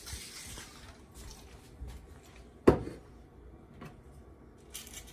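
Short hisses of aerosol butter-flavoured cooking spray, with kitchen clatter and one sharp knock about two and a half seconds in.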